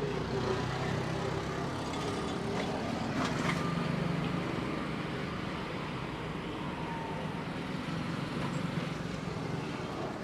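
Steady rumble of passing road traffic, with a few faint clicks.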